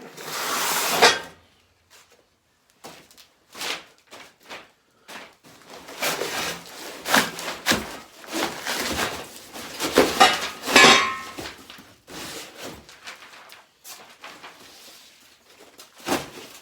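A heavy cardboard box being unpacked: cardboard scraping and rustling, with scattered knocks and clunks as the steel pallet-fork parts are moved about and lifted out.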